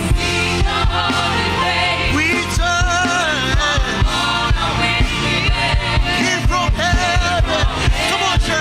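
Live gospel worship music: a band with drums and bass playing a steady beat while voices sing.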